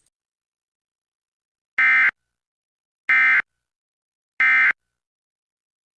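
Emergency Alert System end-of-message code: three short bursts of warbling SAME digital data tones, each about a third of a second long and about 1.3 s apart. They mark the end of the alert.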